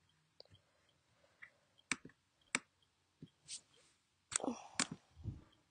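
Fingers tapping and clicking on a laptop: about six short separate clicks from about two seconds in, then a duller knock near the end.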